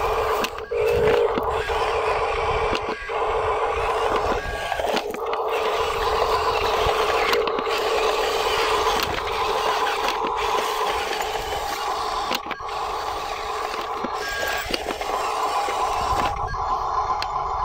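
Huina RC dump truck's small electric motors whining steadily, with its tyres crunching and scraping over dirt and gravel.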